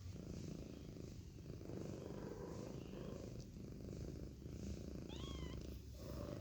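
Domestic cat purring steadily in roughly one-second breath cycles. A short high mew rises and falls about five seconds in.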